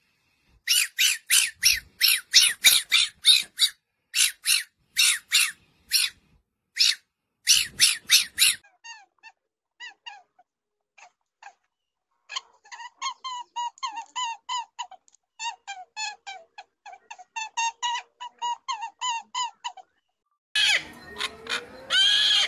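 Red fox giving quick runs of high, yelping calls, then a long string of quicker, softer squeaks. Near the end come loud, harsh macaw squawks.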